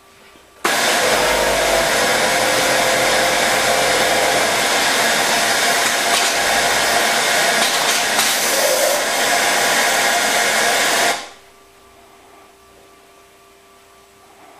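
Kansai industrial multi-needle sewing machine on an EWS 6200 heel tape station running at a steady high speed, stitching heel tape along the fabric. It starts abruptly about half a second in and stops abruptly after about ten seconds.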